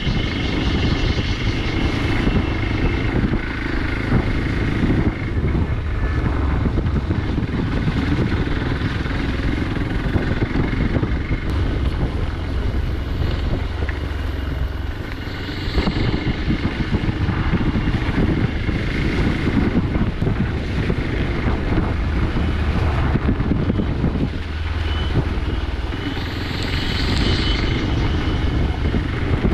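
Motorcycle engine running steadily as the bike is ridden, easing off briefly twice, with some wind on the microphone.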